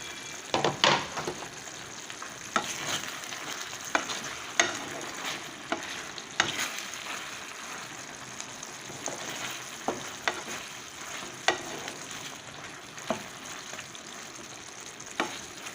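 A spoon stirring vegetables in a pot of simmering shukto, knocking against the pot's sides many times over a steady sizzle from the cooking.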